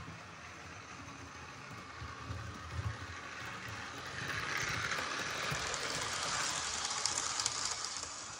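Model railway train running along the track; its running noise swells about four seconds in as it comes close, then eases near the end.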